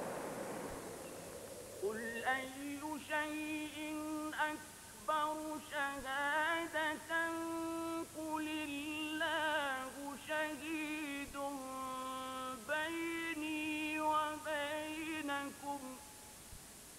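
Solo voice reciting the Quran in the melodic tajweed style, chanting the verse 'Qul ayyu shay'in akbaru shahada, qul Allah...' in long ornamented phrases with short pauses between them. A wash of noise fades away just before the chant begins.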